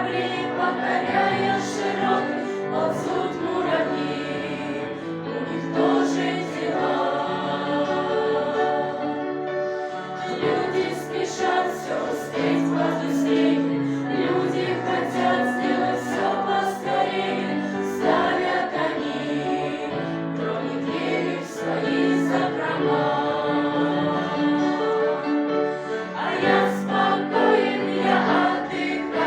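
A group of teenagers singing a song together as a choir, with music behind them.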